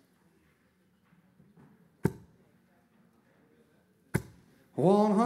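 Steel-tip darts striking a Winmau bristle dartboard: two sharp thuds about two seconds apart. A caller's voice starts near the end.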